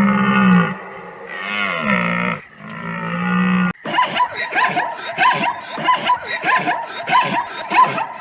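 Long, drawn-out pitched animal calls, three of them. About four seconds in there is a sudden cut to a fast run of short, sharp calls from a different animal, about three a second.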